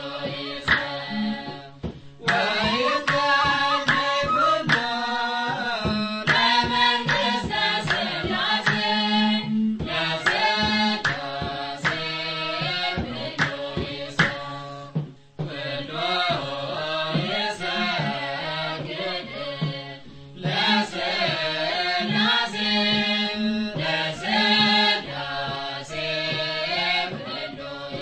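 Ethiopian Orthodox Tewahedo hymn (mezmur): singing in phrases over a steady drum beat, with brief breaks between phrases.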